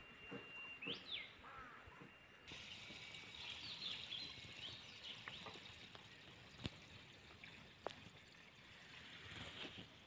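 Faint outdoor ambience of birds chirping. About two and a half seconds in, a steady hiss of trickling shallow stream water comes in under further bird chirps, with two sharp clicks later on.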